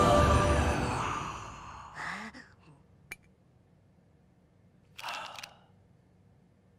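Dramatic cartoon music fades out over the first two seconds, then a cartoon character makes two short wordless voice sounds, like sighs, about three seconds apart, with a small click between them.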